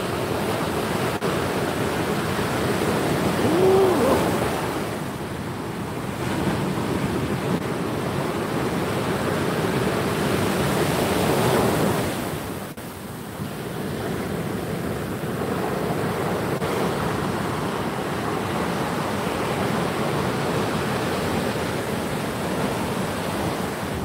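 Fairly strong surf breaking and washing up a sandy beach, with wind blowing on the microphone. The wash swells and ebbs, loudest about halfway through, then drops briefly before building again.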